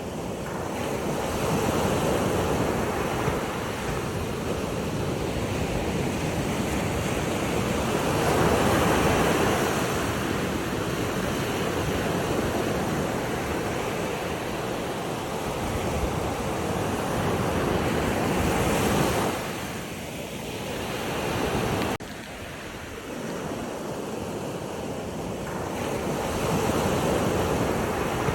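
Ocean waves washing in, the surf swelling and fading every several seconds, with wind.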